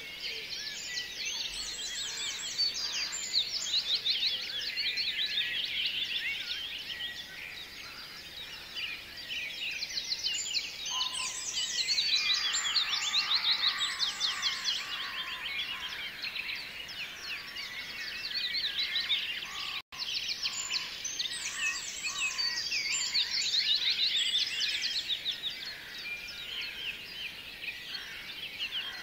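A chorus of many small songbirds chirping and twittering in dense, rapid high notes, swelling and easing in waves. The sound cuts out completely for an instant about two-thirds of the way through.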